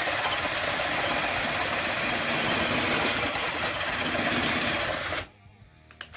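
Tramontina 10.8 V cordless drill-driver running under load, its spade bit boring through a thick wooden beam. The motor and cutting noise are steady, stop about five seconds in as the bit breaks through the underside of the beam, then start again briefly at the very end.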